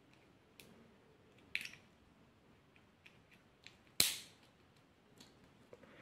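Small plastic clicks and taps as a three-wire servo lead is pulled off one channel's pins on an RC car receiver and pushed onto another. The loudest is a single sharp click about four seconds in.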